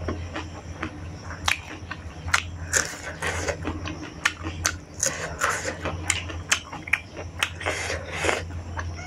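Close-miked chewing and biting: a person eating rice with fresh green chilli, with sharp, wet crunches and mouth clicks about twice a second over a steady low hum.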